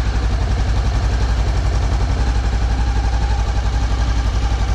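2013 Honda CBR500R's parallel-twin engine idling steadily through its stock exhaust, moments after a cold start after sitting for several days.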